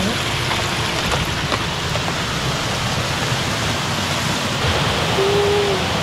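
A wide waterfall with several streams pouring over a rock face, heard as a steady, even rush of falling water.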